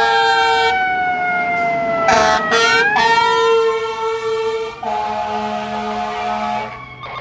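Fire engine's air horn blasting three times, with a short blast about two seconds in and a long one from about five seconds in, over its wailing siren. The siren's pitch slowly falls and then climbs again about three seconds in.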